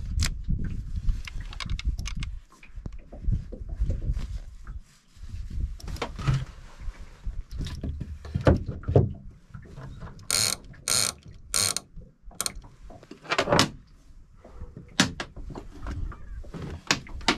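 Tackle being handled on a small fishing boat: scattered knocks and short mechanical ratcheting bursts from a fishing reel, three of them close together a little past the middle, over a low rumble.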